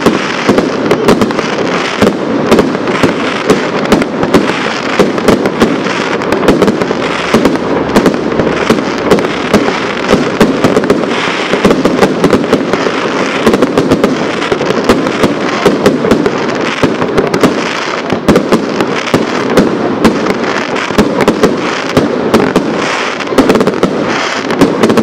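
Aerial fireworks shells bursting in quick succession: sharp bangs several times a second over a continuous dense din of further bursts.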